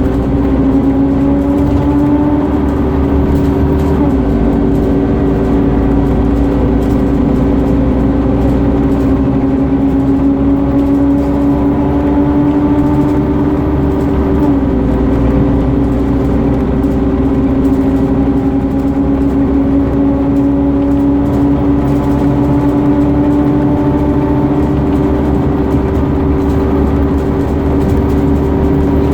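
Scania CN230UB Omnicity single-deck bus running, its diesel engine and driveline giving a loud, vacuum-cleaner-like whine. The higher tones rise slowly and drop back several times as the bus pulls through its gears.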